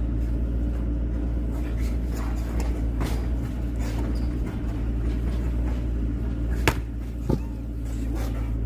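An engine running steadily at an even pitch, with two sharp knocks about half a second apart near the end.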